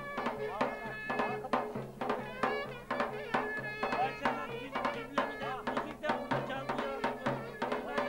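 Turkish village wedding folk music: a davul drum beating a steady rhythm, about two strokes a second, under a wind instrument's melody.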